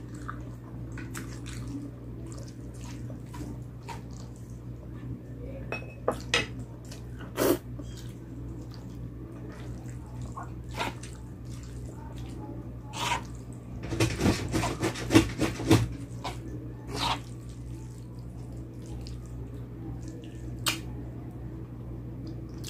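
A person eating close to the microphone: scattered wet mouth clicks and chewing sounds, with a dense run of clicks and smacks about two-thirds of the way through, over a steady low hum.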